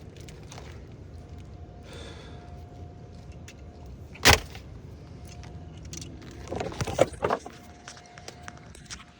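Handling noise of plastic Christmas light sockets and lamp cord: one sharp loud click about four seconds in, then a short run of clicks and rattling near seven seconds, over a low steady rumble.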